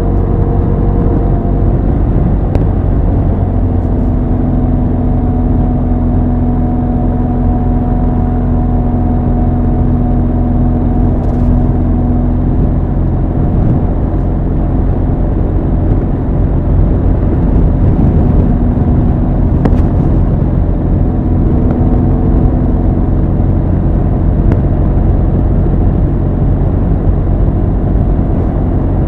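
Motorcycle engine and exhaust running at a steady cruise, the engine note holding even, with a clear steady tone for several seconds in the first half.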